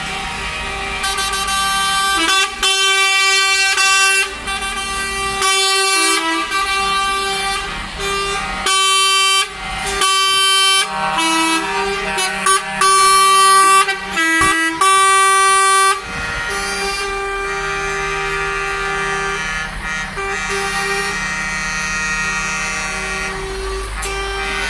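Truck air horns blasting over and over, a string of long and short loud blasts for about fifteen seconds, then the steady running of the trucks' engines as they roll slowly past.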